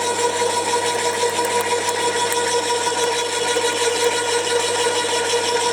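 Flymo electric garden shredder running at full speed with a steady whine and chewing up material fed into it, its cutter tension restored after repair of the snapped adjuster.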